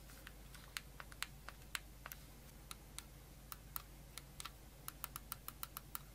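Buttons of a Black Shark Joy-Con style left-side Bluetooth controller clicking as they are pressed: a string of sharp, faint plastic clicks that come quicker near the end.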